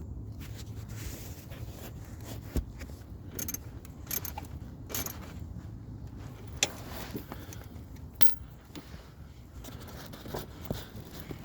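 Sparse metallic clinks and scrapes of hand tools, a wrench and socket working the 13 mm nut on a starter motor's cable terminal, over a steady low hum.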